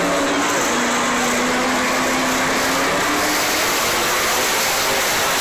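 Monster truck engine running in the arena, a loud, steady din with a held drone for a couple of seconds midway.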